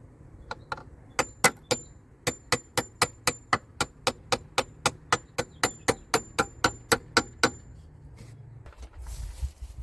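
A hammer driving a nail into wood: a quick, steady run of about two dozen blows at roughly three to four a second, each with a bright metallic ring. The blows stop a couple of seconds before the end.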